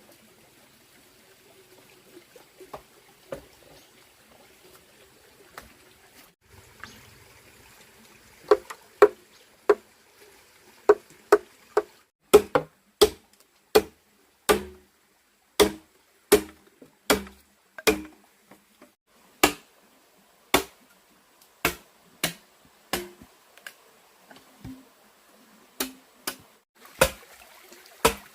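A tool striking wood in a long series of sharp blows, starting about eight seconds in and going on at an uneven pace of one or two blows a second.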